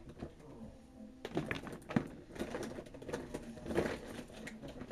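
Hands rummaging through plastic toy figures: a scattered run of light clicks and rustles, with a sharper click about two seconds in.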